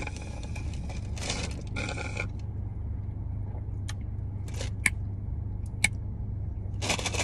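Ice rattling and clinking in a plastic iced-drink cup as it is sipped and handled: a noisy rattling stretch in the first two seconds, then a few sharp clicks. Under it, the steady low rumble of the car.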